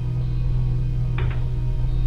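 Background music built on a steady low drone. A short, sharp double sound comes just past the middle.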